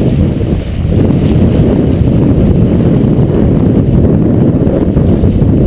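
Heavy wind buffeting the microphone aboard a sailboat running fast in rough seas, a dense low rumble that eases briefly just under a second in, with water rushing past the hull beneath it.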